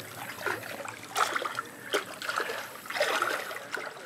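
Shallow river water splashing and trickling as a person wades out of a canoe toward the bank, with uneven sloshes about a second in and again around three seconds.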